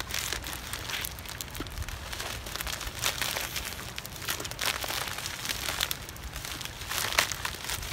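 Shipping envelope crinkling and tearing as it is pulled open by hand, in irregular crackles.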